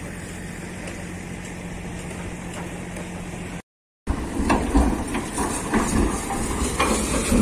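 A winch engine running with a steady hum. After a short break, the launching cradle of a wooden boat rolls down the slipway rails, with a low rumble and repeated metal clanks and knocks, as the boat is let down into the water.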